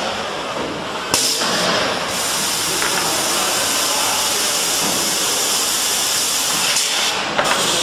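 Two-axis CNC cleaning machine for PVC window frames at work. A loud steady hiss starts suddenly about a second in and holds until near the end, over a mechanical rumble.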